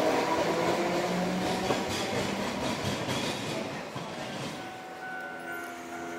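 Hankai Tramway tram no. 351 pulling away over the rails, its running noise fading as it draws off.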